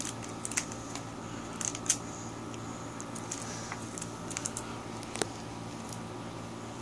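A small plastic blind bag crinkling and crackling as a child's fingers pick at its taped end to tear it open: scattered soft crackles and a few sharper clicks, over a faint steady hum.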